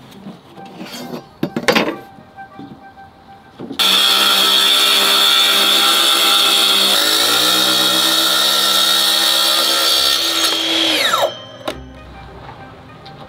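A power tool starts abruptly and runs steadily for about seven seconds, its pitch stepping down partway through, then winds down with a falling whine. A few knocks and handling sounds come before it.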